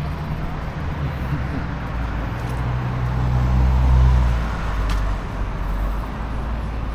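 Street traffic: a motor vehicle passes close by, its low engine and tyre rumble swelling to a peak about four seconds in and then fading.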